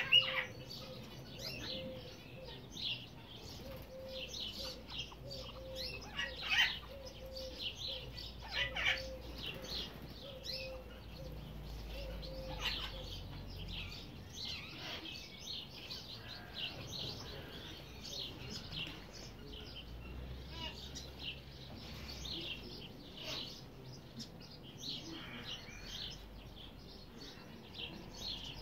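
Wood duck ducklings peeping: a steady stream of short, high chirps, with a few louder calls standing out near the start and about six and a half seconds in.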